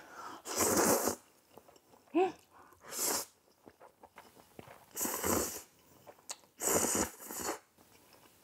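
Close-miked slurping of saucy black-bean instant noodles: four long slurps spread over the few seconds, with chewing between them. A brief hummed sound comes about two seconds in.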